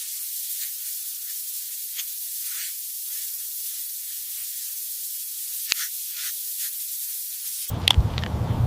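A steady high hiss with a couple of faint clicks. Near the end it gives way to a louder, fuller noise.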